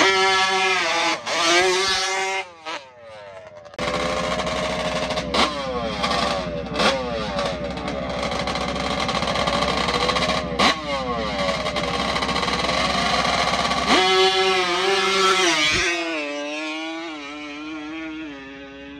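Yamaha Banshee drag quad's two-stroke twin engine revved hard at the line in repeated blips, the pitch falling after each, then held loud for several seconds. Near the end it launches and the sound quickly drops away as the quad runs off down the street.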